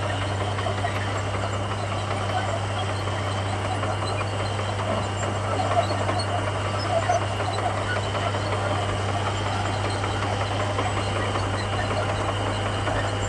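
Komatsu bulldozer's diesel engine running at a steady pitch, with a constant low hum.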